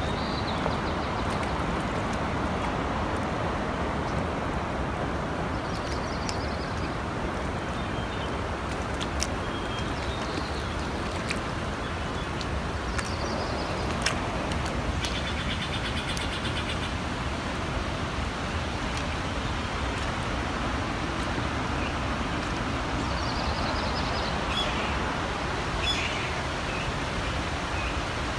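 Steady rushing wind noise, with a few short bird chirps and a brief rapid trill scattered through it.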